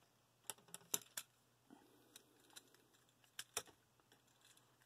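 Plastic joints and panels of a War for Cybertron Springer action figure clicking as they are rotated and folded: about eight short, sharp clicks, with the biggest cluster about a second in and another pair past three seconds.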